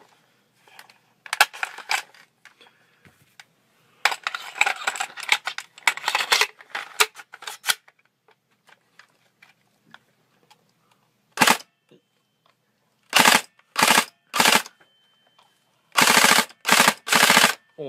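Airsoft replica of an FN SCAR rifle firing in a series of short rapid-fire full-auto bursts, the gun's vibration driving a toothbrush taped to its barrel. The bursts come irregularly, with a longer rough stretch early on and the loudest bursts close together near the end.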